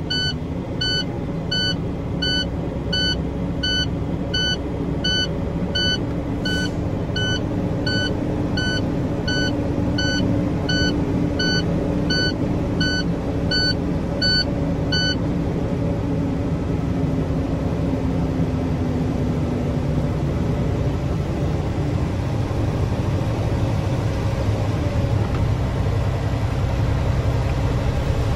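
Truck's diesel engine running at raised revs to build air brake pressure. The cab's low-air-pressure warning beeps about three times every two seconds and stops about halfway through, as the rising air pressure passes the warning point.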